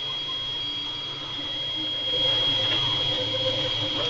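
FDM 3D printer printing in PLA: a steady high-pitched whine over a low hum, with stepper-motor tones that shift in pitch as the print head moves, getting a little louder about two seconds in.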